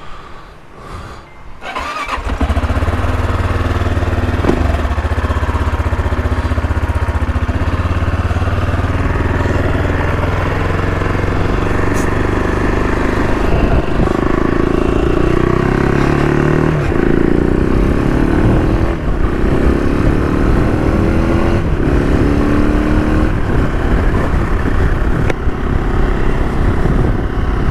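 AJP PR7's single-cylinder engine starting about two seconds in and idling steadily, then revving up through the gears as the motorcycle pulls away, with several gear changes, before settling into a steady run.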